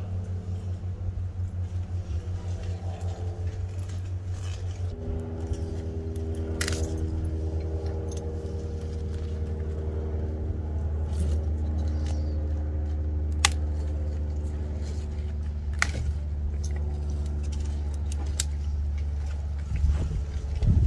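A steady low motor hum, like an idling engine, with several sharp clicks scattered through it.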